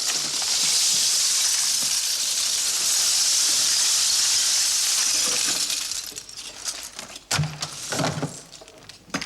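A mass of seashells poured out onto a hard floor: a dense, loud clattering rush for about six seconds that then thins out, with a few scattered clicks and a knock near the end.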